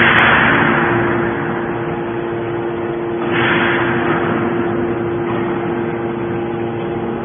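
Hydraulic scrap metal baler running: a steady machine hum from the motor and pump, with two hissing surges, one at the start and one about three seconds in.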